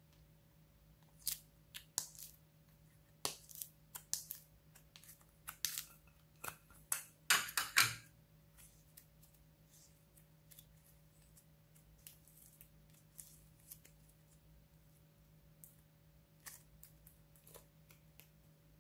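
Thick opaque slime being pulled out of a plastic tub and stretched, giving a run of sticky clicks and crackles that is loudest about seven to eight seconds in, then only scattered faint pops as it is laid down.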